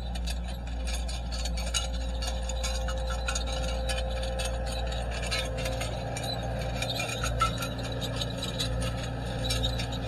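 Caterpillar 248B skid steer's diesel engine running steadily as the machine drives with a load of loose hay, with frequent metallic clinks and rattles over the engine drone.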